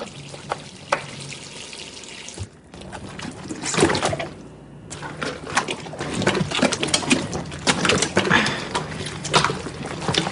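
Water running from a kitchen tap into a sink. From about four seconds in it is broken by splashing and repeated knocks and thumps as a whole raw turkey is wrestled and banged about in the sink.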